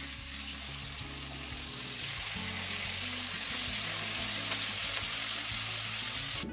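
Marinated beef tongue steaks sizzling in oil in a ridged griddle pan on low heat. The sizzle grows louder about two seconds in, as the steaks are turned over onto their second side with tongs. Soft background music plays underneath.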